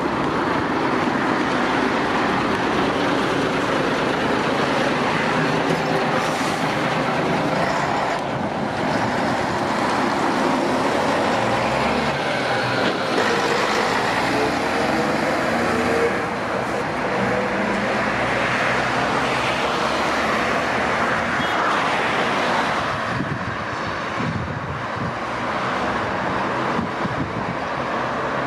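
The diesel engine of a 1987 Ikarus 280.27 articulated bus pulling away and accelerating, its engine note rising and falling in pitch, mixed with the steady noise of passing road traffic.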